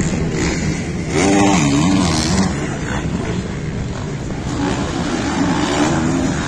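Motocross bike engines revving up and down as the bikes race around the track, loudest between about one and two and a half seconds in.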